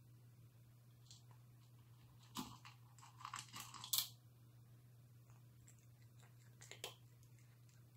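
A cat chewing and crunching food, in a cluster of crisp crunches about two to four seconds in and a brief one near the end, over a faint steady low hum.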